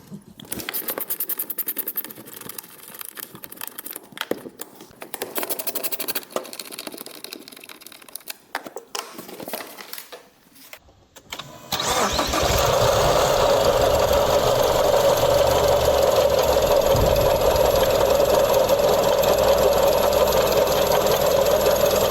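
Clicks and rattles as the Mazda CX-30's engine cover is taken off. About halfway through, the engine starts and runs steadily with a noise from the accessory belt drive, which the owner puts down to the belt tensioner.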